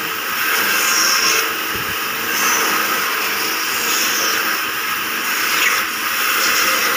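Woodworking band saw running and cutting through a block of wood: a loud, steady sawing noise, rising briefly in pitch several times as the blade works through the timber.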